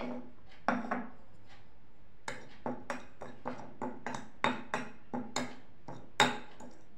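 A spoon mixing powdered white pepper and long pepper (pippali) in a small bowl, clinking against the bowl in a string of light taps. The taps come about two a second after the first couple of seconds, with one sharper knock about six seconds in.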